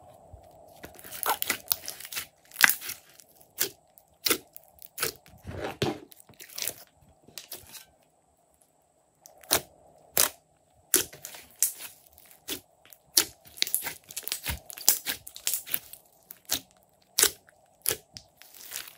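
Glossy slime being stretched, pressed and kneaded by hand, giving irregular sticky pops and clicks in quick clusters, with a short pause about eight seconds in.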